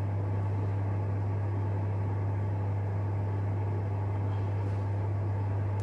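Steady low electrical hum with a faint even hiss beneath it, unchanging throughout.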